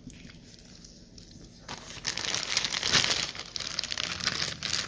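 Slime being squeezed and worked by hand, making a dense, wet crackling of many small pops that starts a little under two seconds in.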